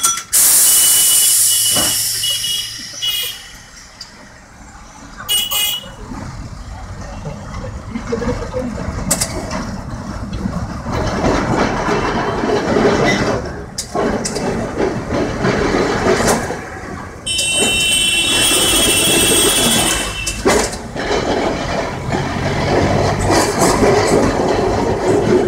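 Tram running on its rails with a steady rumble that grows loud about six seconds in, cut across by shrill horn blasts: two short ones early on and a long one of about three seconds past the middle.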